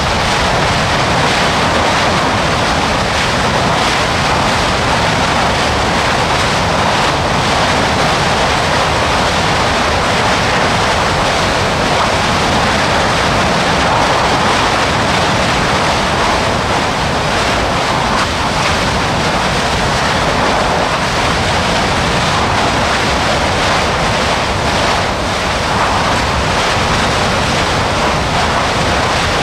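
Steady, loud rushing noise of lava fountaining and spattering from a Kīlauea eruptive fissure, as gas and molten rock jet out of the vent.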